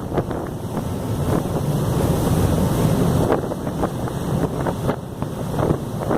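Wind buffeting the microphone on a moving harbour ferry, in uneven gusts over the low rumble of the ferry under way and rushing water.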